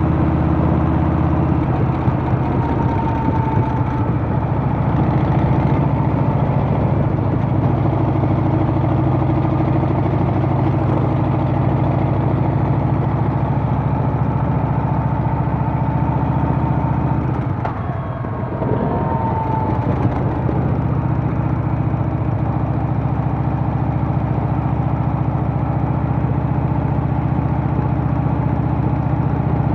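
Harley-Davidson Softail's Milwaukee-Eight V-twin engine running steadily under way. The engine note dips briefly about two-thirds of the way through, then picks back up.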